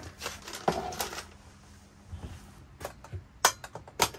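Food packaging being handled on a kitchen counter: a plastic bag crinkling and canisters knocking in the first second, then a few sharp clicks as a can and its lid are handled near the end.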